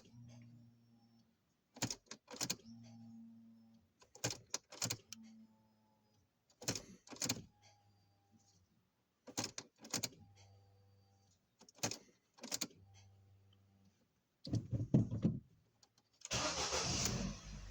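Ford Focus 3 ignition switched on again and again, each time with a pair of clicks and a short low hum from the newly replaced in-tank fuel pump priming the fuel line. Near the end the engine cranks and starts, settling into a steady idle, which confirms the fuel-pump fault behind the crank-no-start is cured.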